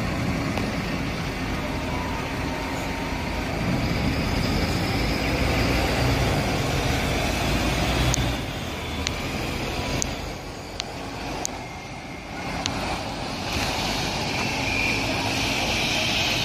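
Diesel engine of a MAN A22 (NL323F, Euro 6) city bus with a ZF EcoLife six-speed automatic, running under load as the bus drives past, with a strong low hum for the first half. It drops off about halfway through, with a few sharp ticks, then a rush of engine and tyre noise builds as the bus passes close.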